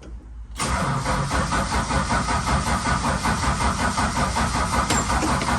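Valiant Charger's engine cranking on the starter motor, starting suddenly about half a second in and turning over with a fast, steady rhythm without catching. Fuel has not yet been pumped through to the carburettor after the car ran dry.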